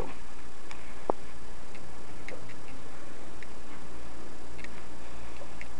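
A few scattered ticks and one sharper click about a second in, over a steady low hum.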